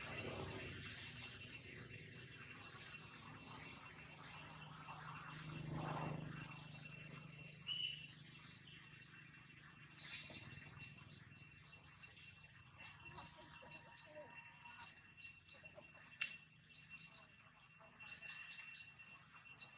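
Short, high-pitched chirps repeating two to three times a second, coming faster from about six seconds in, over a faint steady high drone.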